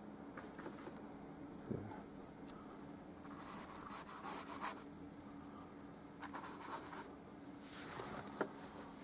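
Paintbrush stroking oil paint onto a stretched canvas: scratchy strokes in about four short spells.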